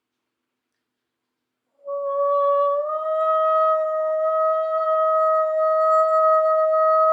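A voice holding one long high note: it comes in about two seconds in after silence, slides up a little, then holds steady and unbroken.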